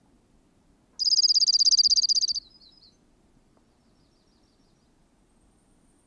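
Male slate-colored dark-eyed junco singing its trill: one fast, even, monotone run of high repeated notes lasting about a second and a half, starting about a second in, with a few faint notes after it.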